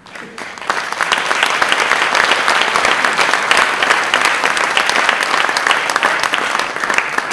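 Audience applauding in a hall: the clapping builds up over the first second, holds steady and eases off near the end.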